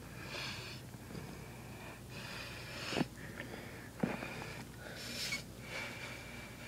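Several short, breathy sniffs and wheezy breaths close to the microphone. Two short knocks come about three and four seconds in, the first the loudest sound.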